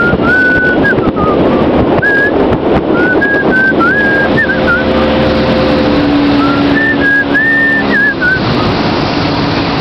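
A person whistling a tune in four short phrases of held, stepping notes over the steady running noise of a small boat's motor and wind.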